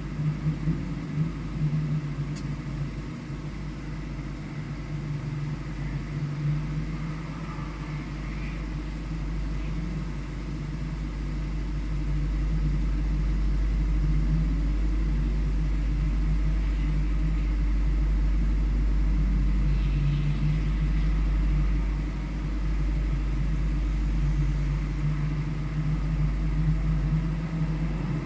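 A vehicle's engine running at a track, its note rising and falling with the throttle over a deep, steady rumble, louder for several seconds in the middle.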